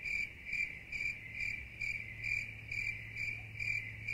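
Crickets chirping, dubbed in as a comedy 'awkward silence' sound effect: an even, pulsing chirp about twice a second over a faint steady hum.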